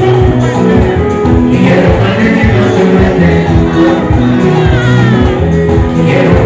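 Loud live band music with singing over a steady beat and a repeating bass line.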